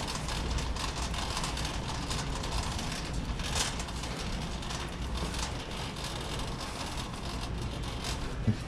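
Steady rumbling background noise of a grocery store aisle, with a brief hiss about three and a half seconds in.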